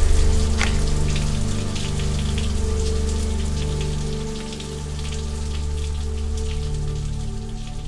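Steady rain falling, with many small drop ticks, over a deep, sustained musical drone that is the loudest part.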